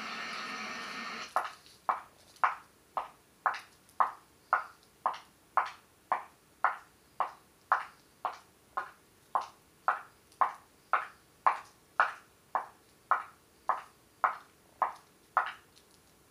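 Footsteps on a paved path at a steady walking pace of about two steps a second, each a short sharp knock. They begin about a second in, as music cuts off, and stop shortly before the end.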